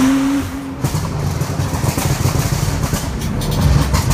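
Nissan GT-R R35's straight-piped twin-turbo V6, heard from inside the cabin, revving up briefly. From about a second in, the exhaust gives a rapid run of crackles and pops over a low drone.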